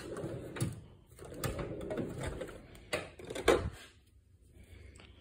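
Tool chest drawer being pulled open, then metal tools clattering and clinking as one is picked out of the drawer, with a sharp click about three and a half seconds in.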